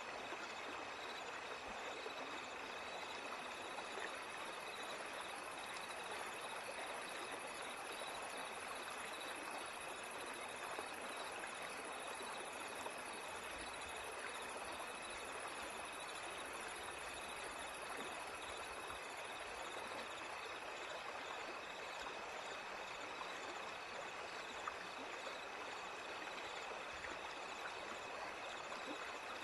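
Steady flowing-water ambience like a running stream, unchanging throughout, with a thin constant high tone over it.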